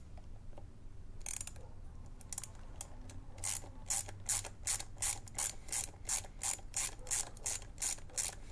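Ratchet clicking as an 8 mm socket undoes the clutch lever's pivot nut while a 4 mm Allen key holds the bolt: a few scattered clicks, then from about three seconds in a steady run of about three clicks a second.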